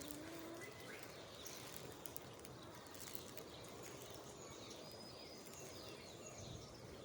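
Faint, steady rush of strong wind, with a few faint bird calls over it.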